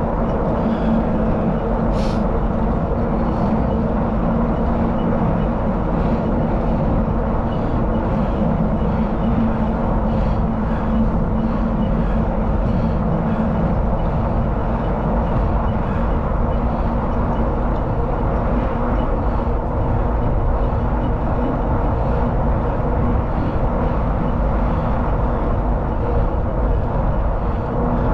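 Steady wind rush on the microphone and tyre noise on pavement from a bicycle rolling along a paved road, with a faint steady hum underneath. A short sharp tick sounds about two seconds in.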